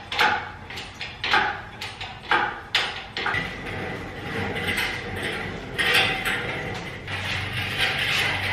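Metal clanks and clicks from a hydraulic engine hoist and its lifting chain as an engine is hoisted and moved: sharp irregular knocks for the first few seconds, then steadier clattering.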